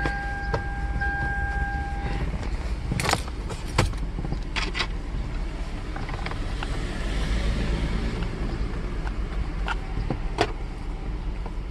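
A steady electronic warning tone stops about two seconds in. After it come scattered sharp clicks and small rattles from a screw and screwdriver working against the plastic steering-column cover as the screws go back in.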